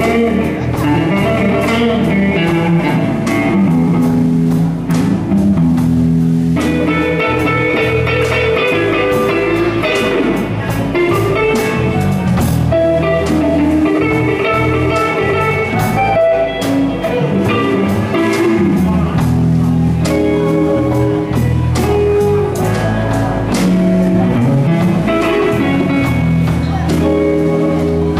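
Live blues band playing: electric guitars over bass guitar and drum kit, with a steady beat.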